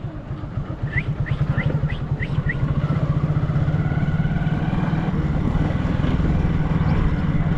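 Motorcycle engine running steadily under way, with a fast, even pulse. About a second in there are five short, high, rising chirps.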